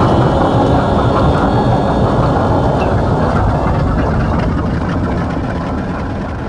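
Diesel locomotive engine running with a heavy, steady rumble, fading out gradually toward the end.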